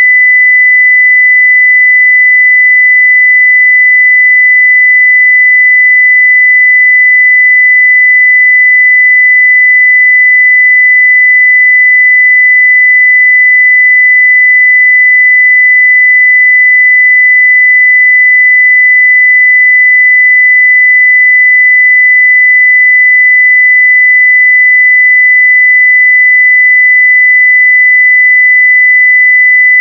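A pure 2 kHz sine-wave test tone at full digital level, a single loud steady pitch that does not change.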